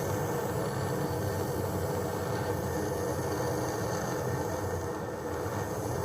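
A steady running machine noise with an even hiss, holding level without breaks.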